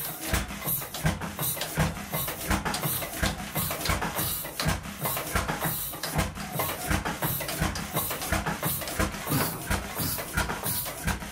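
A roughly century-old Kromhout hot-bulb marine engine running, with a steady, evenly spaced knocking beat.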